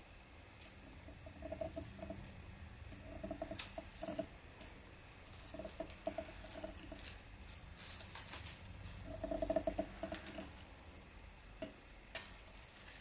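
Cling film being twisted and rubbed against cardstock over wet acrylic paint, giving faint crinkles and a few short runs of small squeaks, with a couple of light clicks.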